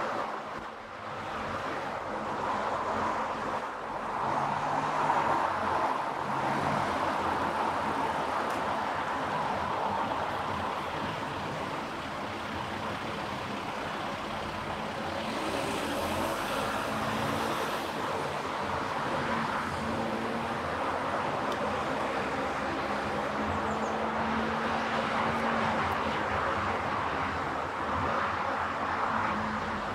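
A car driving along a road: steady tyre and road noise with a low engine hum whose pitch shifts now and then, and a brief rise in hiss about halfway through.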